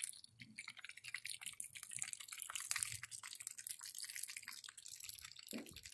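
Beer-battered fish frying in hot oil on a camping gas stove: faint, dense crackling and spitting.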